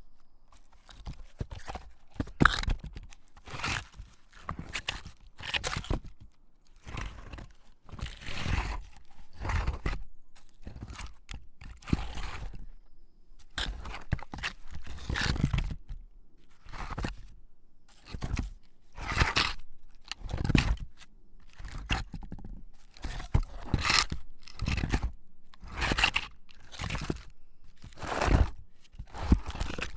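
A rapid series of heavy rock scrapes and grinding drags: a boulder being moved, each scrape short, one after another with brief pauses, gritty and deep.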